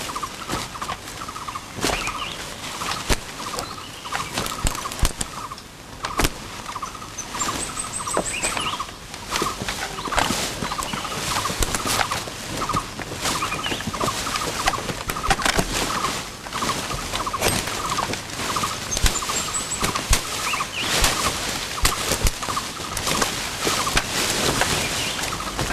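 Jungle ambience: an animal call pulsing rapidly and continuously at a mid pitch, with the crackle of dry leaves and twigs under creeping footsteps and a few brief high bird chirps.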